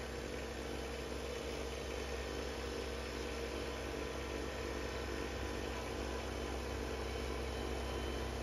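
Kubota BX2822A compact tractor's diesel engine running steadily, driving its front-mounted snowblower as it throws snow; the sound grows a little louder as the tractor comes closer.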